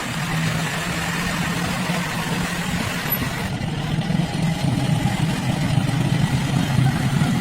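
An engine running steadily, a low even hum; about halfway through, the higher hiss drops away abruptly.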